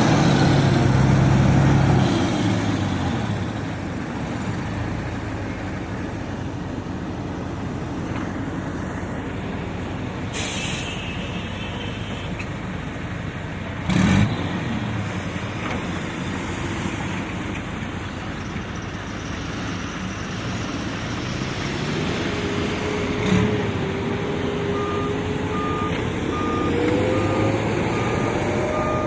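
Heavy diesel earth-moving machinery running steadily. About a third of the way in there is a short hiss of air, a sharp knock comes around halfway, and the engine note climbs over the last several seconds while a reversing alarm beeps evenly near the end.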